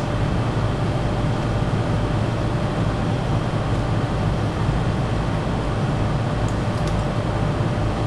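HVAC air handler's blower running steadily, drawing air through a freshly installed clean pleated filter: an even rush of air with a faint steady hum.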